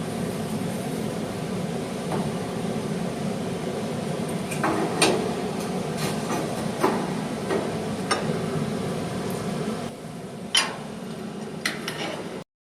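Steel pieces knocked and tapped a few times as metal is fitted around a fuel access port, over a steady low hum. The sound cuts off abruptly near the end.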